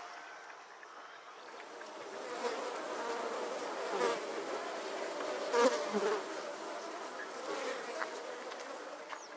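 Flies buzzing around a dead cow's carcass, with a few louder close passes about four and six seconds in.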